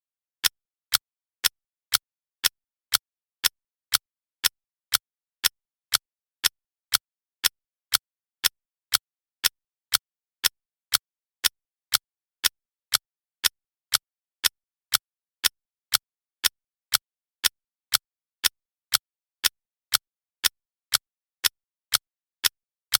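Countdown timer's ticking sound: sharp, even clicks two per second with silence between them.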